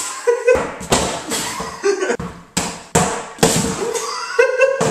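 A series of irregular dull thuds, mixed with short vocal sounds from a person.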